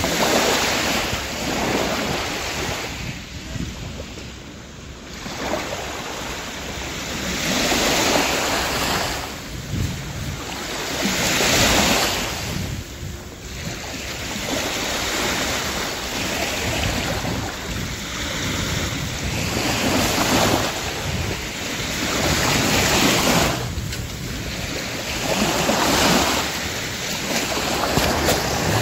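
Small sea waves washing up onto a sandy shore: the hiss of the surf swells and fades again every few seconds.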